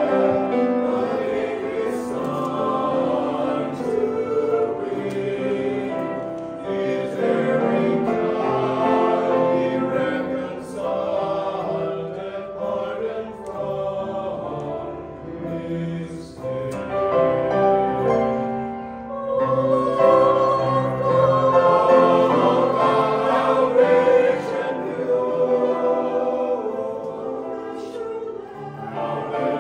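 Mixed choir of men and women singing a hymn, accompanied by grand piano. The singing swells louder about twenty seconds in.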